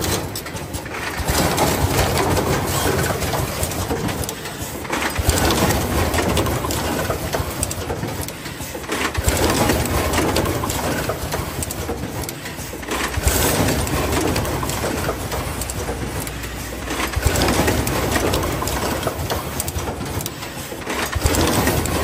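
Fully automatic plug crimping machine line running: a continuous mechanical clatter that swells and eases about every four seconds.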